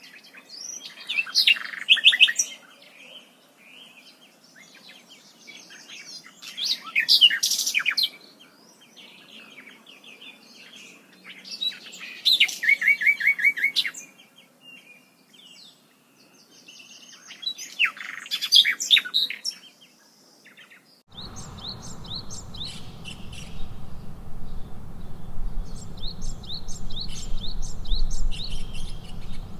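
Songbirds singing in bursts of quick, high chirps and trills every few seconds. About two-thirds of the way through, a steady low rushing noise comes in under fainter, rapid chirping.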